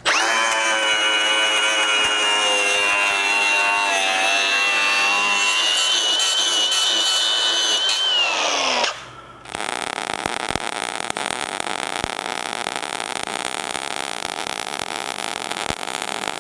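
Cordless Milwaukee angle grinder running at speed with a steady high whine as it grinds the rusted steel mower deck, winding down about eight seconds in. After a brief pause, a welding arc crackles steadily.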